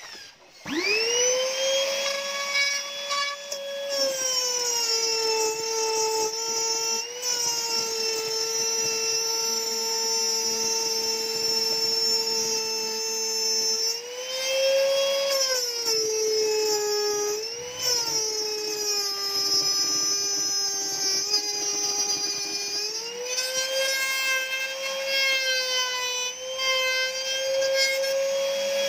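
Electric router starting up about a second in, then running with a high whine as its bit cuts an arc slot through an acrylic sheet. The pitch drops each time the cut loads the motor and climbs back as the load eases.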